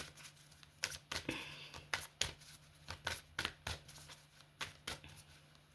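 Tarot cards being handled and laid out: a string of sharp card flicks and slaps, about a dozen at irregular intervals, over a faint steady low hum.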